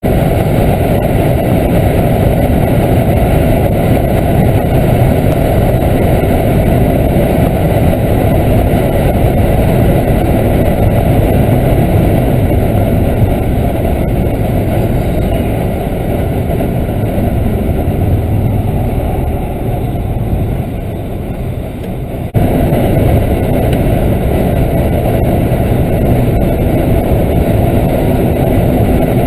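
Steady drone of a BMW F30 330d at Autobahn speed, heard inside the cabin: low tyre, wind and engine noise from its straight-six diesel. It grows quieter for a few seconds around twenty seconds in, then jumps back to full level abruptly.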